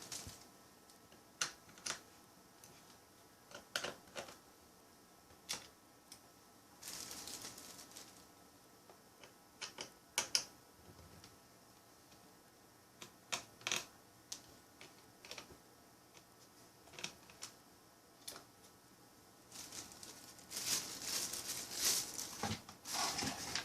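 Scattered light clicks and taps of a small Phillips screwdriver and tiny screws against a laptop's plastic case, with a couple of longer stretches of handling noise.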